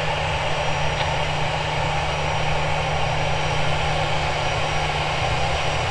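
Distant jet airliner's engines running steadily: a continuous low hum with a hiss above it.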